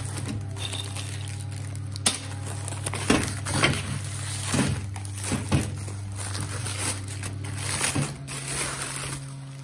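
Plastic parts bags and a bubble mailer crinkling as they are handled, with several clunks of steel bandsaw-table parts set down on a steel workbench. A steady low mechanical hum runs underneath and changes pitch about eight seconds in.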